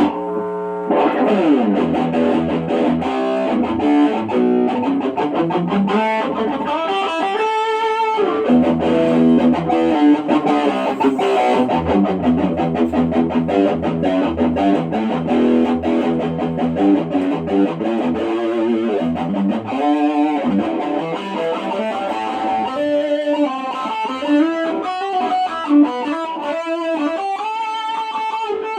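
Unbranded Telecaster electric guitar played continuously in quick single-note lines, with a slide down in pitch about a second in.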